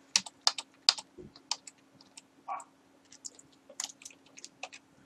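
Computer keyboard keys tapped in quick, irregular clicks, the keystrokes of edits being undone, over a faint steady hum.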